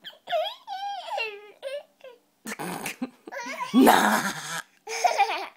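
Toddler making high, wavering squeals and giggles with her fingers pulling at her mouth, broken into short bursts, with the loudest burst of laughter about four seconds in.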